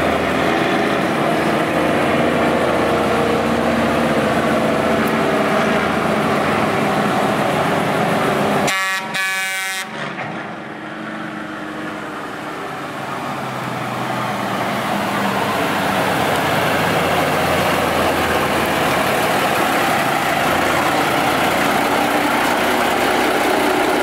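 Crane Carrier concrete mixer truck running its diesel engine as it drives up, sounding its air horn with long steady blasts. The sound cuts out briefly about nine seconds in.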